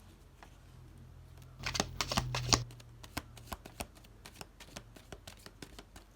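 Tarot cards being shuffled by hand: a dense run of loud card riffling about two seconds in, then scattered single flicks and taps of cards.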